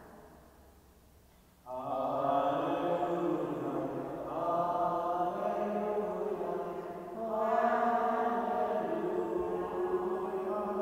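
A man's solo voice chanting liturgical chant in long held notes. It starts suddenly about two seconds in and runs on in three phrases.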